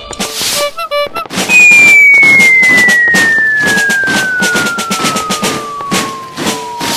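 A loud whistle gliding steadily down in pitch for about five seconds, starting about a second and a half in, over a continuous crackle of rapid pops like firecrackers. A few short squeaky toots come just before the whistle.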